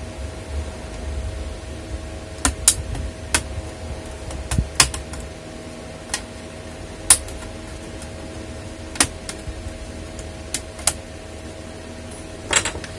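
Plastic snap clips of a laptop palm rest clicking free one at a time as its edge is pried up with a plastic pick: about ten sharp clicks at uneven intervals. Under them runs the steady hum of a room fan.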